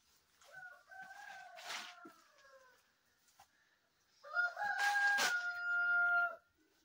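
A rooster crowing twice: a fainter crow near the start that trails downward, then a louder crow past the middle that holds a steady note before cutting off.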